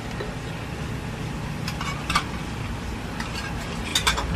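Refrigerator compressor, a Panasonic unit in a Toshiba inverter fridge freshly charged with R600a, running with a steady low hum after its charging stub has been sealed. A few sharp metallic clinks come about two seconds in and again near the end.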